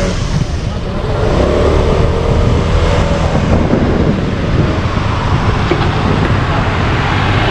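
A 125cc motorbike being ridden at road speed: its engine runs steadily under a loud, even rush of wind noise.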